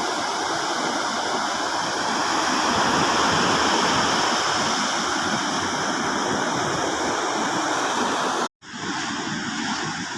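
Steady rush of water, loud and even, that cuts off suddenly about eight and a half seconds in and gives way to a quieter, duller background.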